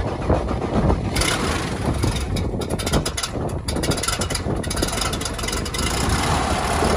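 Pelegrin Tarragon light aircraft's engine and propeller running as the plane taxis, with gusty wind buffeting the microphone.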